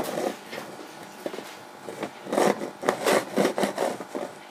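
A Pringles can handled close to the microphone: a short rub at the start, then a run of about five or six irregular scraping, rustling noises a couple of seconds in.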